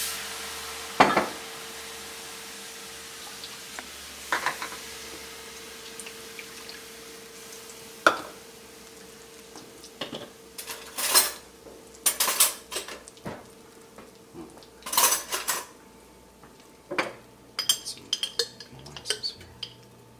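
Cast-iron skillet of bacon fat and flour hissing as liquid for red-eye gravy hits it, the sizzle fading over the first few seconds. A metal spatula and glass containers then knock and clank against the pan: a few single knocks, then clustered clanks, then a run of small clinks near the end.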